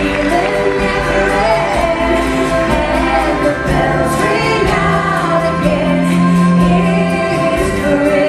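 Live music from a stage performance: several women singing together in harmony over an acoustic band accompaniment.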